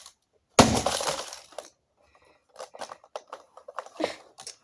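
A hammer blow smashes into an Emerson iPod docking radio: one loud crash about half a second in that dies away over about a second, followed by a scatter of small clicks and clinks from loose pieces.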